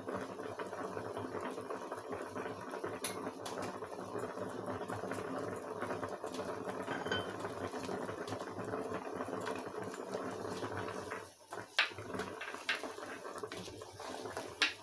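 Pot of meat boiling hard on the hob: a steady bubbling hiss. About eleven seconds in it drops away, and a wooden spoon stirring the pot gives a few sharp knocks.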